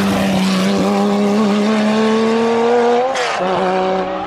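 Classic Porsche 911 rally car's air-cooled flat-six running hard as it passes close and pulls away. About three seconds in, the note breaks with a short rasp and drops in pitch, then carries on.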